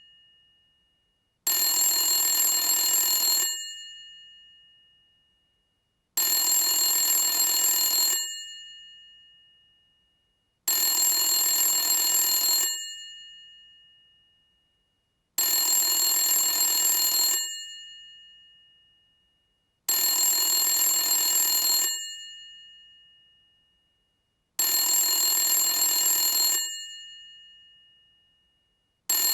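Old rotary telephone bell ringing in bursts of about two seconds, repeating about every four and a half seconds, six rings in all with a seventh starting at the very end. After each burst the bell tones fade away.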